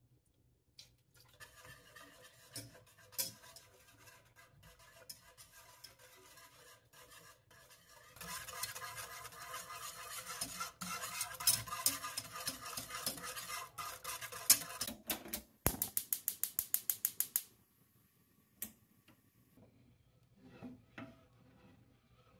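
A whisk beating milk in a metal saucepan: soft stirring at first, then from about eight seconds in, fast scraping and clinking of the wires against the pan. This is followed by a quick, even run of about a dozen taps, and then faint stirring.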